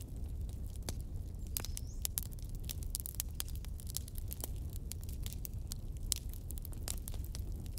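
Wood fire burning with a steady low rumble and irregular sharp crackles and pops, with a brief high whistle about two seconds in.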